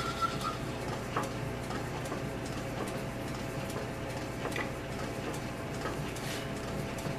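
South Bend lathe running steadily while a drill bit bores out the inside of a motorcycle handlebar end, with scattered light ticks. A thin high squeal fades out about half a second in.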